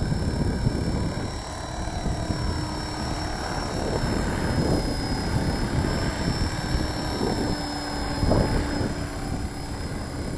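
Walkera V450D03 electric RC helicopter hovering, its motor and rotor giving a steady high whine that wavers slightly in pitch. Gusty wind rumbles on the microphone underneath.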